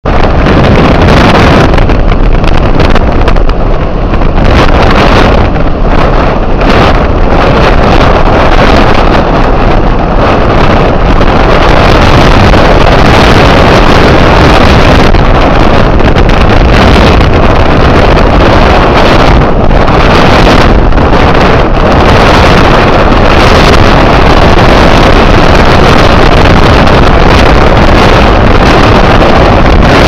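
Strong wind blasting across the microphone, loud and steady, over the rush of rough sea along a ship's hull.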